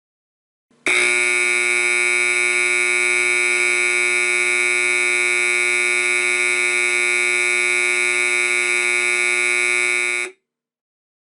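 Edwards 374 Adaptahorn, an electromechanical fire alarm horn running on 120-volt AC, sounding one loud, steady, unchanging tone. It starts about a second in and cuts off suddenly near the end.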